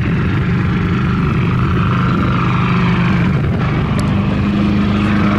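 Champion 3400/3100-watt inverter generator running steadily, growing a little louder toward the end.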